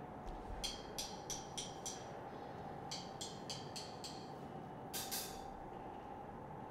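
Faint series of short, bright glassy clinks, two runs of five at about three a second and another pair later, over a steady hum.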